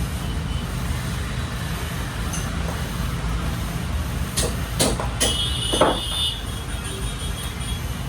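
Steady low rumble with a few sharp metallic clicks about halfway through, one of them followed by a brief high ringing.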